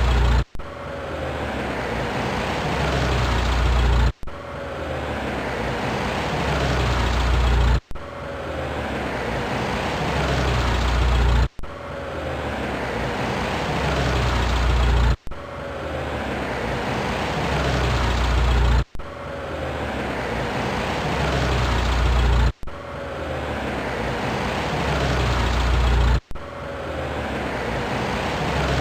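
A car engine sound, the same clip of under four seconds repeated about eight times with a brief cut between each; every repeat grows louder toward its end, with a deep rumble building up.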